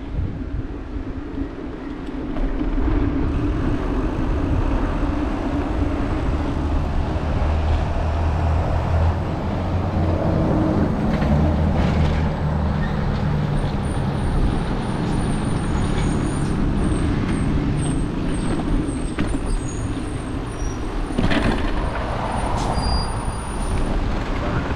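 Road traffic of cars and trucks passing on a busy street, a steady low rumble that gets louder about two seconds in.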